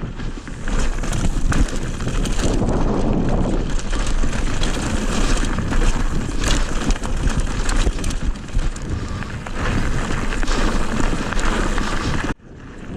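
Strong wind buffeting the microphone in loud, gusty rumbling noise. It drops off sharply near the end.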